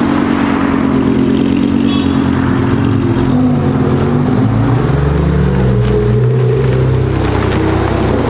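Loud sports car engines running: a steady idle at first, then from about three seconds in an engine revving, its pitch rising and falling.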